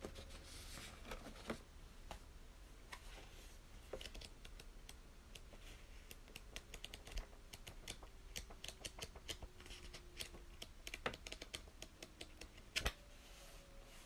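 Paper handling: a planner pad being lifted and its pages leafed through, making light rustles and many small, sharp paper clicks and taps, with a louder flick near the end.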